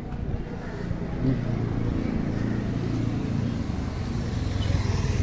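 Street traffic: a motor vehicle engine running close by as a steady low rumble, growing louder near the end as it comes past.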